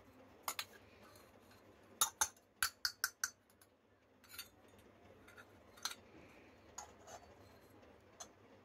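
Small metal toy pots, cups and lids clinking and tapping against each other as they are handled and set down: a quick run of clinks about two seconds in, then scattered single taps.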